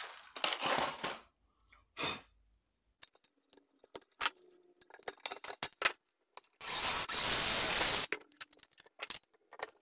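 Small steel pop rivets rattling in a plastic box and clicking metal handling, then a cordless drill running for about a second and a half near the end, the loudest sound.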